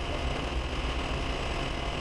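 Clausing metal lathe running steadily, its motor and spindle giving an even low hum, while a boring bar cuts the bore of a steel part.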